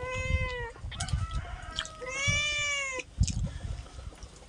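Domestic cat meowing repeatedly: a short meow at the start, a fainter one about a second in, and a longer, drawn-out meow about two seconds in.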